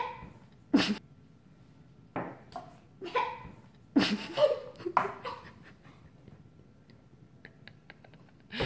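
A child coughing and gagging into a paper cup, a series of sudden, harsh coughs in the first five seconds, set off by a spoonful of dry ground cinnamon. Near the end come faint clicks as she drinks water.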